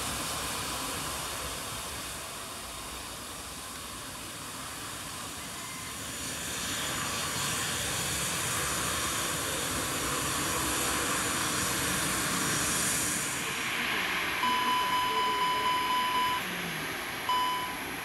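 Airbus A320's CFM56 jet engines running at taxi power, a steady hissing whine that swells in the middle. Late on, a pulsing electronic beep sounds for about two seconds, then once more briefly.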